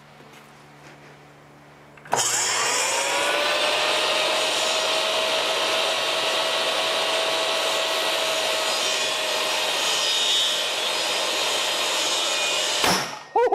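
SawStop Jobsite Saw Pro 10-inch table saw switched on about two seconds in: the motor whine climbs in pitch as the blade spins up, then runs steady without cutting. Near the end it stops abruptly as the blade-contact brake fires on a hot-dog finger and the blade drops below the table.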